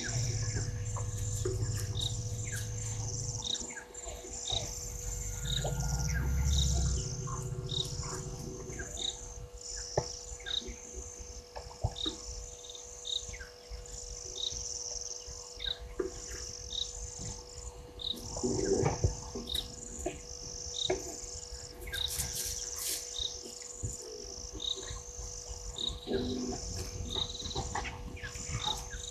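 Insects chirping in a steady rhythm, about one high chirp a second, over a constant faint electrical hum. A low rumble runs under the first several seconds, and a few louder clicks and knocks come about two-thirds of the way through.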